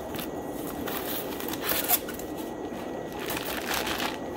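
Clear plastic liner bag crinkling and rustling as it is pulled open inside a cardboard shipping box, in a few short bursts, the loudest a little before two seconds in.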